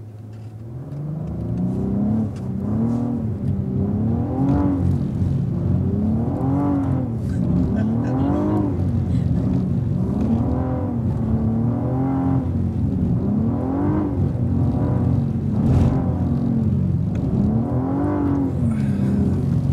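Cadillac ATS-V's twin-turbo V6 climbing in revs about a second in, then rising and falling about every two seconds as the throttle is worked through slides on a wet skid pad in second gear.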